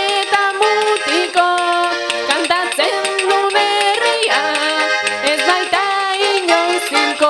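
Basque trikitixa music: a diatonic button accordion plays a lively tune while a woman sings and a pandero tambourine keeps the beat with jingling strikes.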